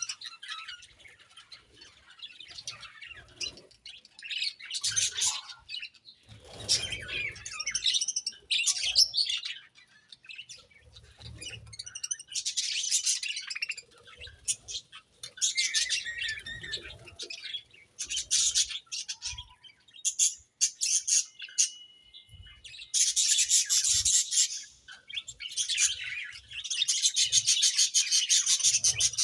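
A colony of budgerigars chirping and warbling in bursts, with short pauses between. Near the end the chatter turns into a fast, even run of clicks.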